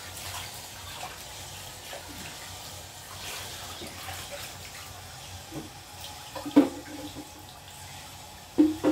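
Water running and splashing as a small dog is washed by hand, a steady wash of water noise. Two short, louder sounds come near the end, about two seconds apart.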